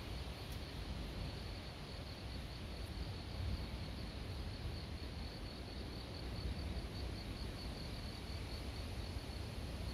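Insects chirping in a steady high-pitched pulse, about three chirps a second, over low, even outdoor background noise.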